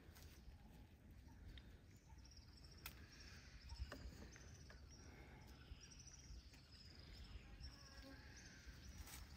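Faint outdoor ambience with high-pitched insects chirping in short repeated trills, and a couple of light clicks about three and four seconds in.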